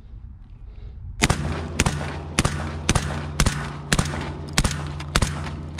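Black Aces Tactical FD12 semi-automatic bullpup 12-gauge shotgun firing suppressed through a SilencerCo Salvo 12 can. It fires a rapid string of about eight or nine shots, roughly two a second, starting about a second in.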